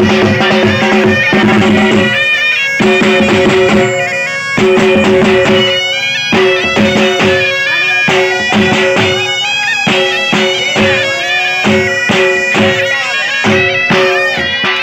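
Jhumar folk music on dhol and been: the reedy been plays a wavering melody over its steady drone while the dhol beats a fast, driving rhythm.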